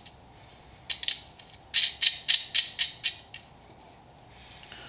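A quick, irregular run of about ten sharp metallic clicks and rattles over a couple of seconds, from small metal hardware being handled.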